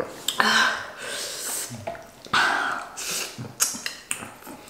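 A person eating spicy noodles: two long breathy, hissing slurps and a few shorter mouth noises and small clicks.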